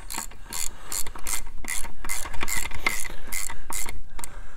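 Socket ratchet wrench clicking in quick repeated back-and-forth strokes as it runs down the connecting-rod cap nuts on a Ford Model A engine.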